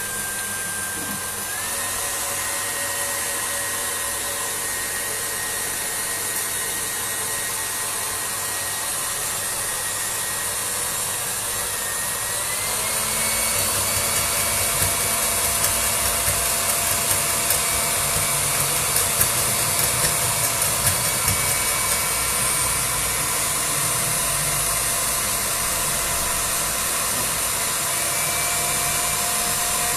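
KitchenAid stand mixer running with its wire whisk beating an Italian meringue until it whips up stiff. The motor's whine steps up in pitch about a second and a half in, and again about twelve seconds in, where it also gets louder.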